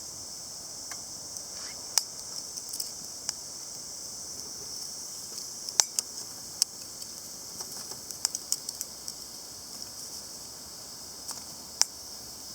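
Small wood fire burning in a charcoal chimney starter, crackling with irregular sharp pops over a steady high hiss; the loudest pops come about six seconds in and again near the end.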